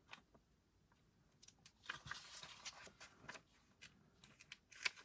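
Faint handling of LEGO set packaging: soft rustling with light clicks, mostly about two seconds in and again near the end, with near silence between.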